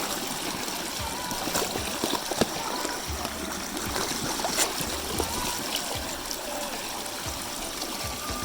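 Mountain stream water running steadily, with a few short sharp knocks on top.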